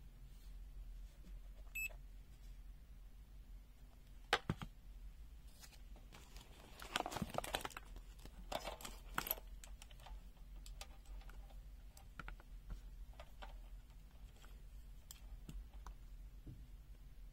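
Faint handling sounds of a digital multimeter and its test leads: a sharp click about four seconds in, then a stretch of rustling and clicking, with small scattered ticks after.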